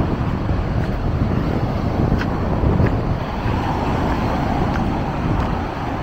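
Wind buffeting the microphone: a steady low rumble over a wash of noise, with two faint clicks about two and three seconds in.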